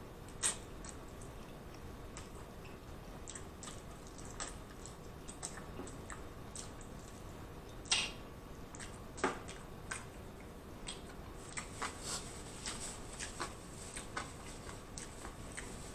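Close-miked wet mouth sounds of a person eating: fingers being licked and sucked clean, with lip smacks and chewing. Short, sharp smacks come one at a time, the loudest about half a second and eight and nine seconds in, and more often in the last few seconds.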